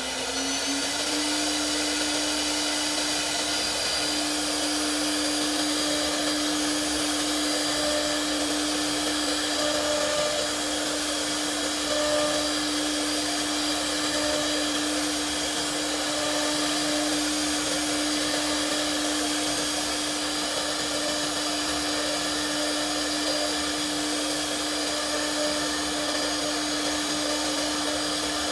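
Spindle of an RZ1325B CNC router running with a steady whine, settling to its set speed in the first second.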